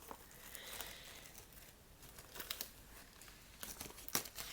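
Packaging of a DVD box set being handled and opened: faint crinkling, with a few sharp crackles about two and a half seconds in and again near four seconds.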